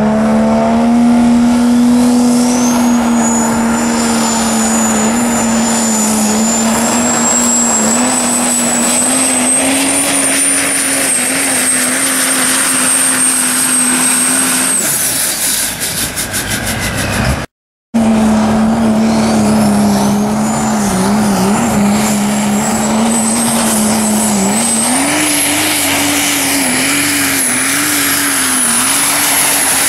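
Super stock diesel pulling trucks under full throttle on the sled: a steady engine drone topped by a high turbocharger whistle that climbs in the first couple of seconds and then holds. The first run fades about fifteen seconds in. A second truck's pull follows with the same drone and another rising whistle.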